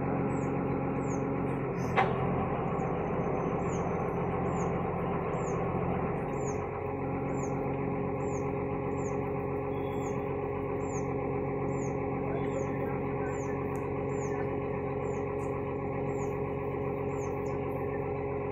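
Diesel engine of a Demag truck-mounted mobile crane running steadily, its pitch shifting slightly a couple of times, with one sharp knock about two seconds in. A faint high chirp repeats about twice a second throughout.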